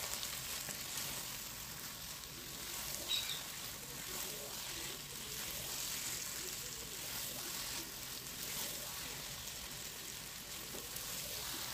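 Potatoes and eggs sizzling in a nonstick frying pan as the eggs cook, a low steady sizzle while a spatula gently mixes them.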